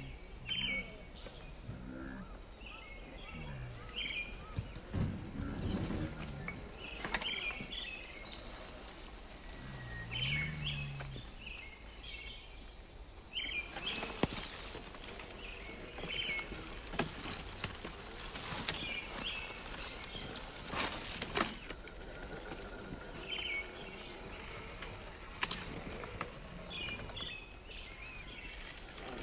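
Woodland ambience with small birds chirping briefly every few seconds. About halfway through there is a stretch of crackling, like dry leaves and twigs being crushed.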